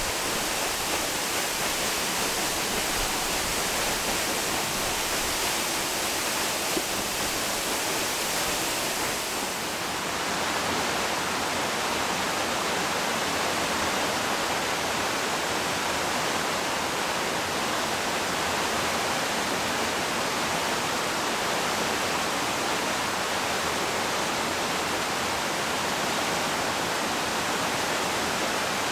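Yoro Falls waterfall pouring steadily, a dense, even rush of falling water. About ten seconds in its tone shifts slightly, losing some hiss and gaining fuller middle.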